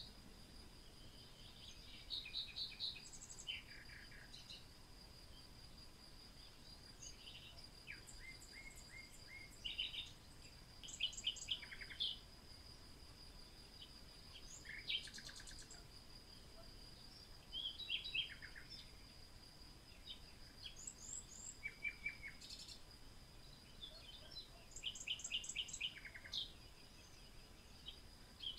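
Songbirds chirping and trilling in short, scattered phrases over a steady high-pitched tone.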